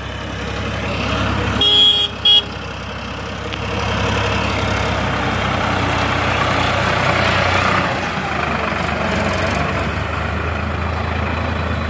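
Sonalika tractor's diesel engine running steadily as it hauls a loaded soil trailer past, with two short horn toots about two seconds in.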